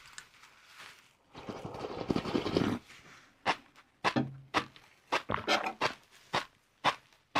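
Close-miked eating: a rough, noisy bite lasting about a second and a half, then crisp crunches of chewing, two or three a second, as crunchy fried noodles are eaten.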